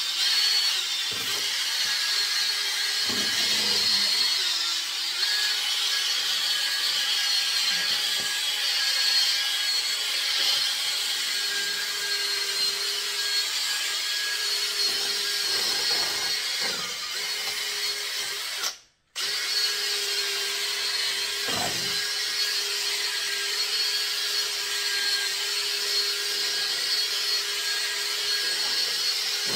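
Cordless drill spinning a 500-grit sanding disc dry against a plastic headlight lens, taking off the yellowed surface haze. It runs steadily, with one brief break about two-thirds of the way through.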